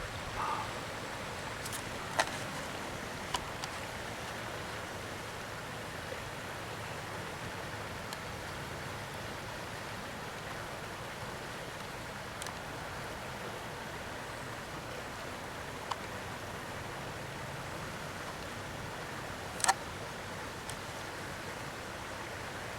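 Steady outdoor background hiss, with a few sharp clicks scattered through it, the loudest about three seconds before the end.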